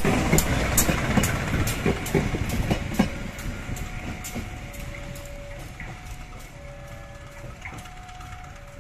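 CC 201 diesel-electric locomotive hauling a single passenger coach passing close by, its wheels clicking over the rail joints. The rumble fades over the first three seconds as the train moves away, leaving fainter wheel clicks and a few thin tones coming and going.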